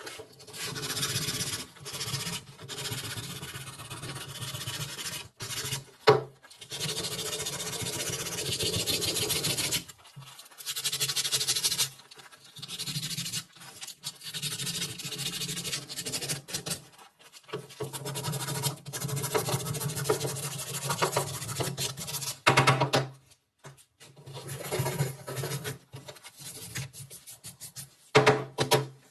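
Abrasive rubbing and filing in repeated bursts of a few seconds each, stopping and starting again and again, as in hand work on a part being restored.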